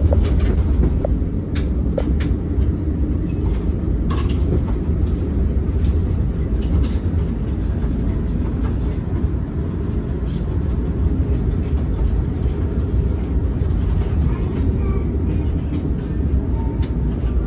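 Running noise inside a Daegu Metro Line 3 straddle-beam monorail car: a steady low rumble of its rubber tyres on the concrete guideway, with scattered light clicks.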